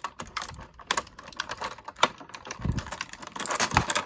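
Small hard plastic parts clicking and tapping as an action figure's plastic knives are handled and pushed into its sheaths: rapid, irregular clicks with a few duller knocks.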